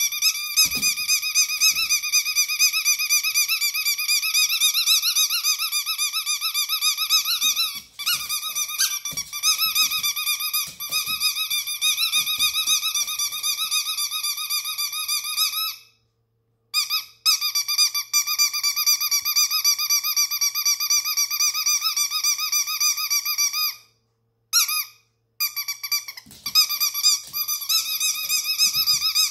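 Green rubber chicken squeak toy being squeezed over and over, giving a loud, near-continuous wavering squeal at a steady pitch with a few short breaks. Soft low thumps from a jumping dog sound underneath.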